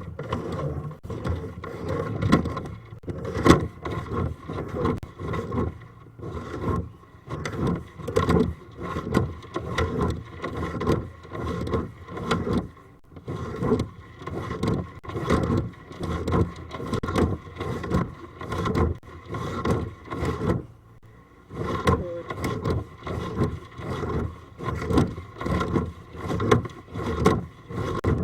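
Drain inspection camera's push cable being fed into the pipe by hand: repeated scraping and rubbing strokes, roughly one a second, with a couple of short pauses and a faint steady tone underneath.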